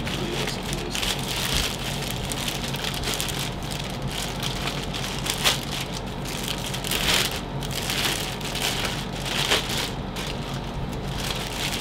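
Clear plastic bag crinkling and rustling as it is pulled off an electric scooter, in a steady crackle with several louder swells.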